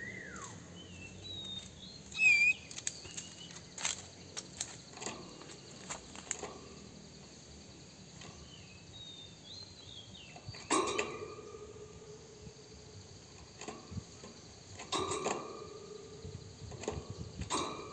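Oriental magpie-robin giving short, spaced-out whistled notes and sharp clicking calls. Three lower, drawn-out sounds come in over the second half.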